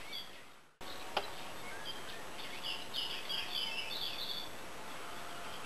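Blue tit chirping: a quick run of short, high notes in the middle, over a steady outdoor hiss. The sound drops out briefly before 1 s and there is a single click just after.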